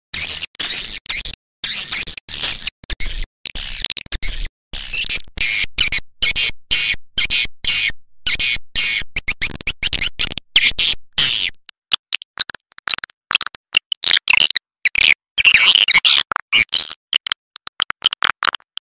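Recorded swiftlet call: rapid, high-pitched twittering and chattering broken by many short gaps, in a dense stream that thins briefly around the middle. It is the lure sound played in a swiftlet house to attract swiftlets to roost and nest.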